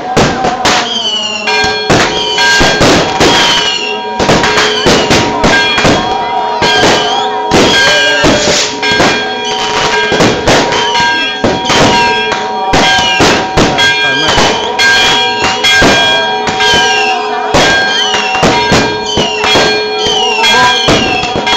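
Fireworks and firecrackers going off in a dense barrage, several bangs a second, with repeated falling whistles. Under them, church bells ring steadily for the Resurrection.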